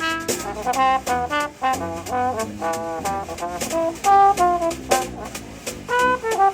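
Live brass band playing a Christmas tune, with trumpets and trombones carrying a quick run of short notes over a steady drum beat.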